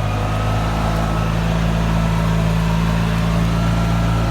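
Golf cart driving at a steady speed, its motor giving an even, unchanging low drone.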